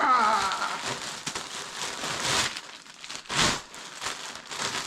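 Parcel packaging being crinkled and torn open by hand, a dense rustling crackle with one sharp rip about three and a half seconds in.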